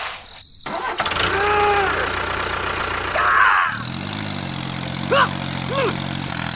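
An engine starting, then settling into a steady idle a little past halfway, with a couple of short high-pitched chirps over it near the end.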